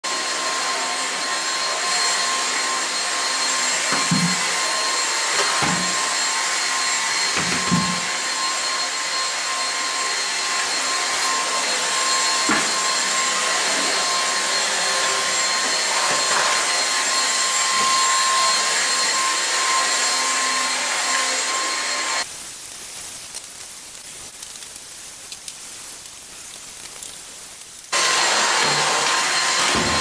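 Dyson cordless stick vacuum running steadily with a high motor whine, with a few low knocks in the first half. It drops away for about six seconds near the end, then runs again.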